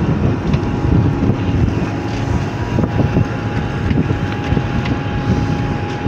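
Wind buffeting the microphone on a boat's deck at sea, over the steady rumble of the boat running; a faint steady tone comes in about two seconds in.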